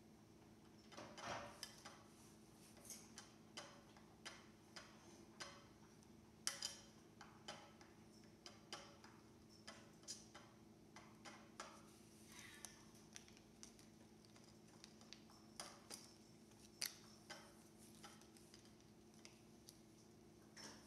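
Light, irregular ticks of a thin stick tapping on the top of a small acrylic box, about one or two a second with a quick flurry a second in, over a faint steady hum.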